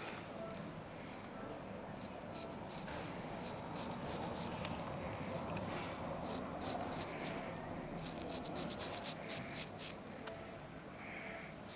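Straight razor scraping through lathered stubble in a run of short, irregular strokes.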